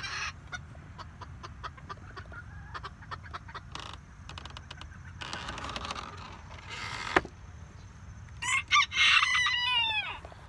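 A rooster crows once near the end, a loud call that falls away in pitch. Before it come scattered light clicks and rustling.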